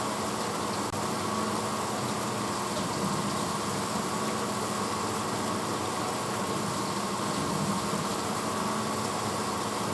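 1986 Hotpoint Potwasher dishwasher running mid-cycle: a steady motor hum under an even rushing noise, with a faint steady higher tone.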